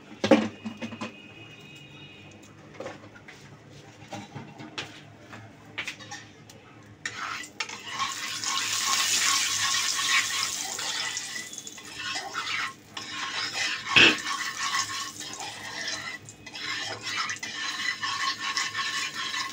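A spatula knocking and scraping in an iron karahi, with sharp clacks near the start and once more about two-thirds through. From about seven seconds in, hot oil with turmeric and salt in it sizzles steadily as it is stirred.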